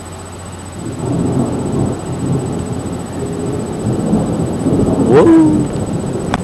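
Thunder rumbling and rolling, starting about a second in. About five seconds in a brief rising tone sounds over it, and a sharp click comes near the end.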